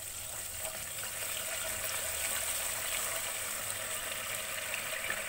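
Ginger-garlic paste sizzling steadily in hot oil with whole spices as it is lightly fried.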